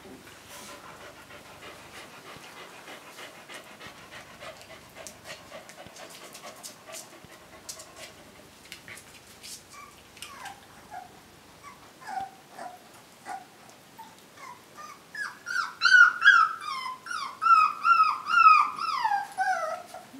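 Puppies whimpering: faint, thin whines at first, then a quick run of short, high, falling yelps that grows loud over the last five seconds or so.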